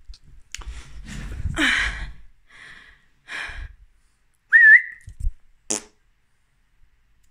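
A short whistled note about two-thirds of the way through, rising quickly and then held briefly. Before it come rustling handling noises, and a sharp click follows soon after.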